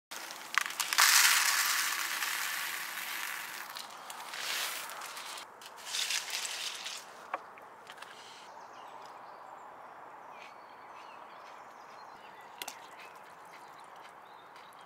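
Dry chocolate puffed rice cereal poured into a plastic bowl, loudest in the first few seconds, then milk added. Near the end there are a few small clicks of a spoon against the bowl.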